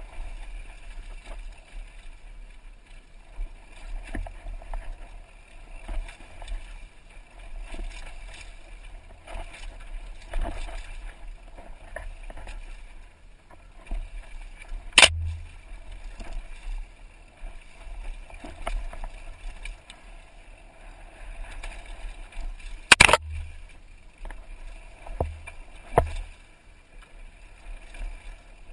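Downhill mountain bike ridden fast over a dirt trail, heard from a helmet camera: a steady rush of wind and tyre noise with the bike rattling, broken by sharp knocks as it hits drops and rocks. The loudest knocks come about halfway through and again about three quarters through, the second a quick cluster.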